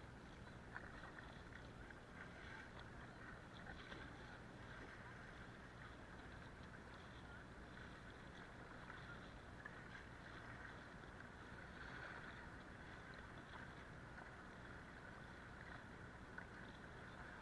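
Faint, steady rush of fast river water around a kayak's hull as it runs down a riffle.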